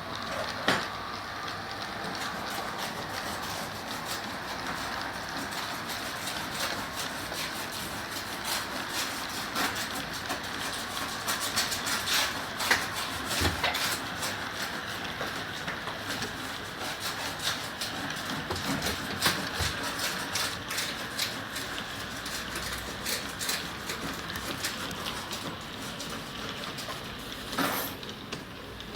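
Freight train running past on the rails, a continuous rumble with many sharp irregular clicks and a few louder knocks.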